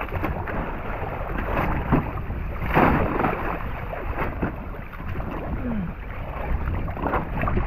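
Steady wind and water noise aboard a small boat at sea, with a few light knocks and a brief louder surge a little under three seconds in.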